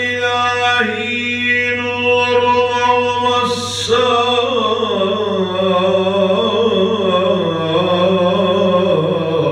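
A man singing a Turkish kaside (devotional hymn to the Prophet) unaccompanied, drawing out a long wordless melismatic line with held, ornamented notes. He takes a quick breath about three and a half seconds in, then the melody winds slowly downward. A steady low hum runs underneath.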